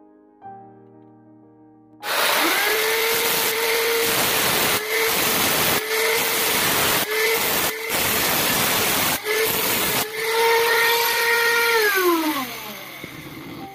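Soft piano music, then about two seconds in an electric angle grinder with an abrasive disc starts grinding a small steel part spun in a drill chuck: a loud steady whine over a grinding hiss, dipping briefly several times. Near the end the whine falls in pitch as the grinder winds down.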